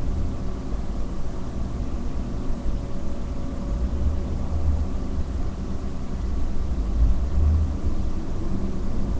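Low, uneven rumble with a faint steady hum underneath, swelling twice in the middle of the stretch.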